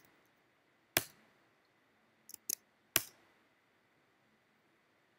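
A few sharp computer clicks, such as a mouse button or keys: one at the start, one about a second in, a quick pair near two and a half seconds and a last one at about three seconds. Then only faint hiss.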